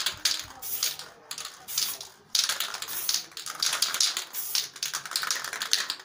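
Aerosol spray-paint can hissing in a series of short bursts, each lasting from about half a second to a second and a half, as paint is sprayed on in strokes.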